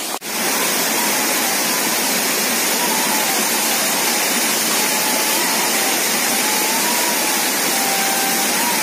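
Waterfall rushing loudly and steadily. A faint flute melody of long held notes runs over it.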